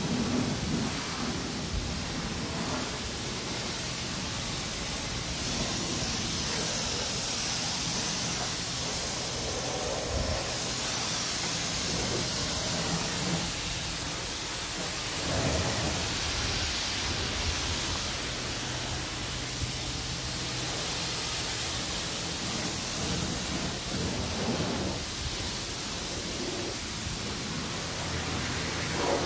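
Self-serve car wash pressure wand spraying water onto a car, a steady hiss of spray.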